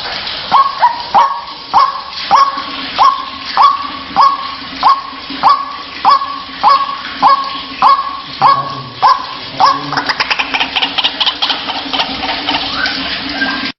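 White-breasted waterhen (ruak-ruak) calling, a repeated 'kruwak' about every 0.6 seconds, each call rising quickly and then holding its pitch. About ten seconds in, the calls turn faster and higher.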